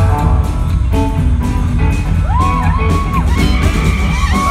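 Live rockabilly band playing loud: electric guitar, slapped upright bass and drums over a steady driving beat. From about halfway through, high notes bend up and down.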